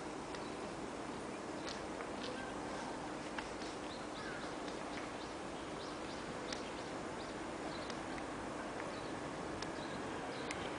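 Small birds chirping: many short, high calls scattered throughout over a steady outdoor background hum.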